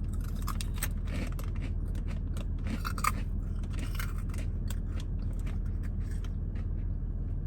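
Close-up chewing of a crunchy snack: irregular small crunches and crackles.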